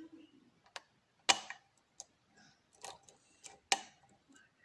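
Metal lock pick clicking and tapping against the pins inside a Euro cylinder lock: a handful of sharp, uneven clicks, the loudest about a second in and another near the end.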